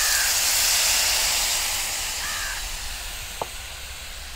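A glass of water poured into a kadhai of hot oil and fried elephant apple pieces, hissing and sizzling loudly, the hiss dying down over a couple of seconds. A crow caws twice in the background, and there is a single light tap near the end.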